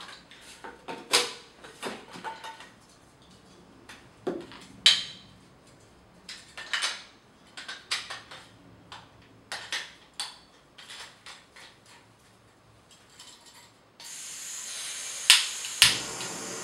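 Parts of a Jetboil Flash camping stove being handled: scattered clinks and knocks of the metal cup, lid and gas canister. About fourteen seconds in, gas starts hissing from the burner, and the igniter clicks twice as the flame lights.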